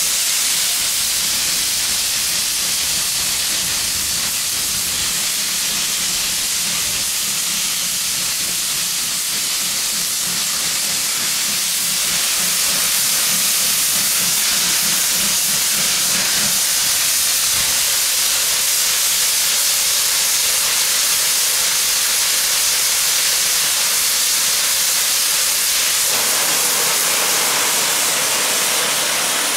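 Rebuilt Bulleid West Country class steam locomotive 34046 Braunton letting off steam: a loud, steady hiss of escaping steam, a little louder about halfway through.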